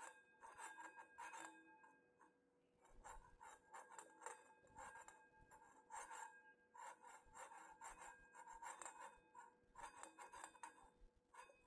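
Metal spoon scraping the bottom of an aluminium pan in repeated faint strokes, the pan giving a light metallic ring, as the sun-fried egg is loosened to be turned over.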